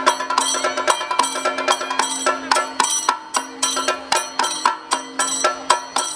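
Live Kerala traditional percussion music: a rapid rhythm of sharp, ringing strikes, several a second, with a held low note sounding on and off underneath.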